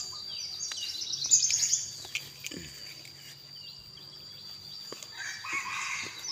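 Small birds chirping in quick high trills about a second in, over a steady high insect drone, with a rooster crowing near the end.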